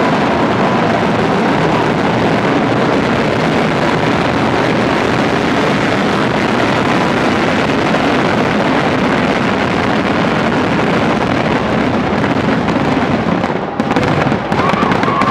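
Kerala temple vedikettu fireworks barrage: firecrackers and aerial shells going off so fast that the blasts run together into one loud, unbroken crackling din. It dips briefly near the end.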